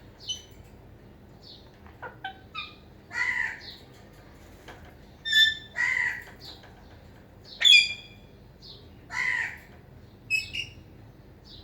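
Pet parrot calling: harsh squawks roughly every three seconds, mixed with short, sharp chirps and whistles. The loudest is a piercing call about two-thirds of the way in.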